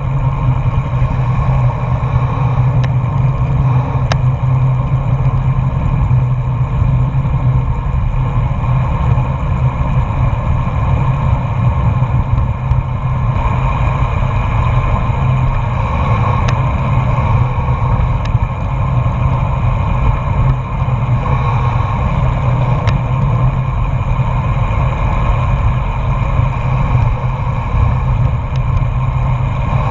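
Steady, loud wind rush buffeting a GoPro action camera's microphone while cycling on a road, with tyre hum on asphalt mixed in.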